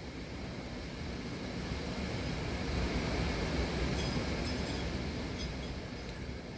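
Hurricane-force wind gusting, a noisy rush that swells to a peak about halfway through and then eases, with a few faint ticks and rattles near the middle.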